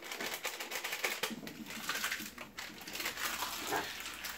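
A utensil stirring quickly in a small bowl, clicking and scraping against its sides in a rapid, irregular run as a sauce-mix packet is mixed into milk.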